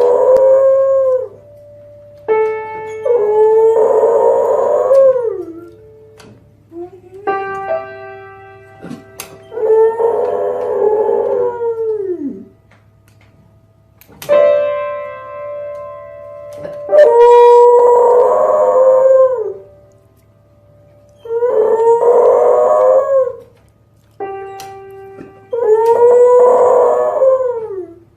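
A dog howling along to notes played on a keyboard: a note or chord is held, and the dog answers with a long howl, about six howls in all, each sliding down in pitch at the end.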